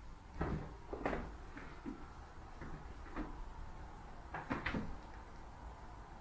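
A handful of soft knocks and bumps: one about half a second in, another about a second in, one a little after three seconds, and a quick cluster of three around four and a half seconds.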